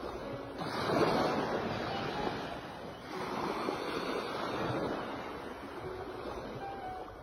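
Sea waves washing in, the rushing noise swelling and fading in surges.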